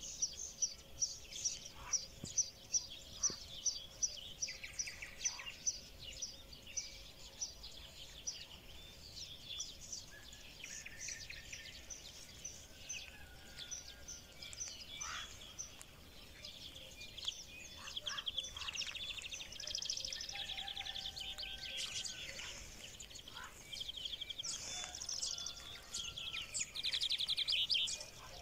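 Small birds singing: a high chirp repeated about three times a second for the first several seconds, then varied calls and fast trills, the loudest trill near the end.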